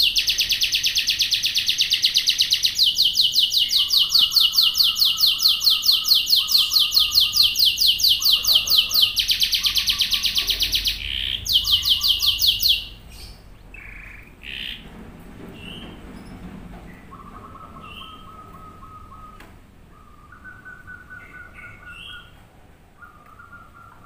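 Canary singing a long, fast trill of evenly repeated high notes, a song of a male in high breeding condition. The trill cuts off suddenly about 13 seconds in. Softer short chirps and brief steady whistled notes follow.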